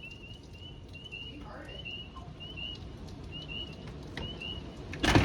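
Short, high chirps repeating in twos and threes at a steady pitch, over a low rumble of wind; a sudden loud bang comes near the end.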